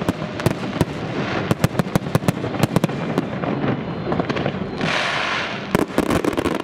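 Fireworks display: aerial shells bursting in rapid succession, with sharp bangs and crackling pops over a continuous rumble, and a brief hiss about five seconds in.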